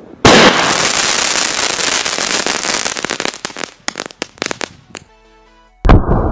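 Fireworks buried under a sand mound going off: a sudden loud rushing hiss starts just after the beginning and lasts about three seconds, then breaks up into a string of sharp crackling pops. After a brief snatch of music, a loud bang comes near the end as another burst erupts.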